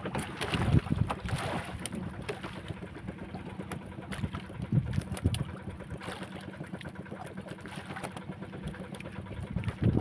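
A small engine running steadily with a low hum, under irregular knocks and handling noise on the boat.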